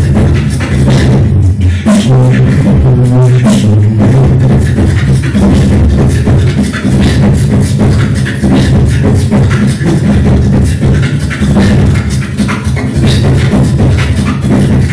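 Loud continuous beatboxing: rapid mouth-made drum clicks and hisses over a hummed bass line of sustained low notes that step from pitch to pitch.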